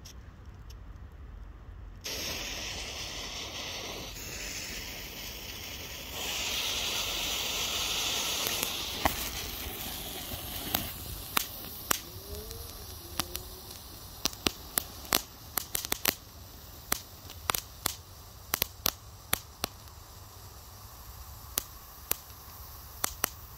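Miniature firework fountain (Klasek DP1FR Rozpustilé Fontánky) lighting with a sudden hiss about two seconds in, spraying loudest a few seconds later. It then settles to a quieter hiss, crackling with many sharp pops as it keeps burning.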